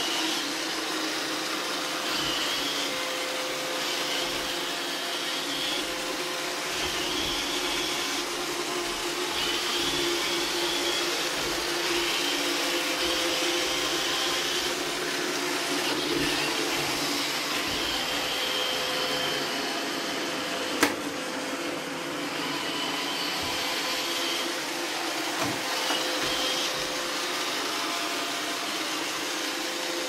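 Robot vacuum cleaners running steadily, with a higher motor whine that comes and goes and a single sharp click about two-thirds of the way through.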